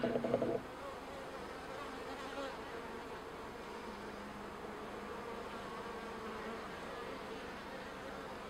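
Honey bees of a package colony buzzing as a comb is held up out of an open top-bar hive: a steady hum, briefly louder in the first half second.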